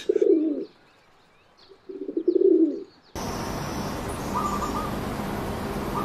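Rock pigeon cooing twice, two low coos each under a second long. It cuts off suddenly into a steady outdoor hiss with faint, brief runs of quick bird notes, twice.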